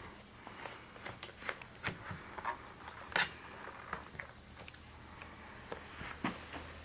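Scattered light clicks and taps of hands handling the laptop's plastic screen assembly and its connector tape, with one sharper click about three seconds in.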